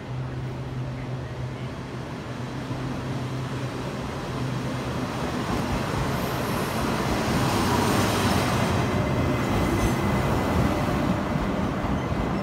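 Locomotive-hauled passenger train behind an E200-class electric locomotive rolling into a station. Its rolling and running noise builds from about four seconds in to its loudest near eight seconds, over a steady low hum.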